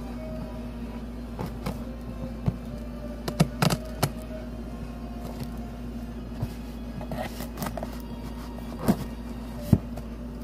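Scattered clicks, taps and rustles of toy packaging being handled and opened, with a couple of sharper knocks near the end, over a steady low hum.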